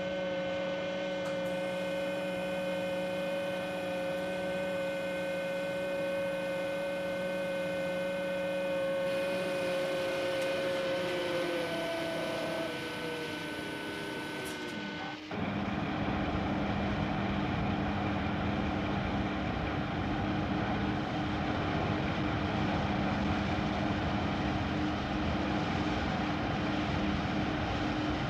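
Steady, whining vehicle engine hum whose pitch sinks as it winds down about twelve to fifteen seconds in, then cuts abruptly to a rougher, lower engine drone that runs on steadily.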